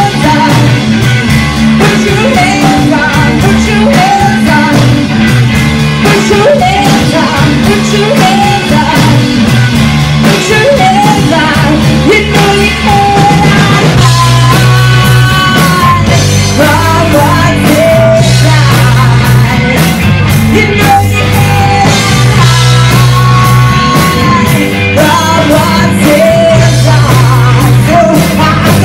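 Live rock band playing: a woman singing lead over electric guitar, bass guitar and drums. About halfway through, the singer and bass move to longer held notes.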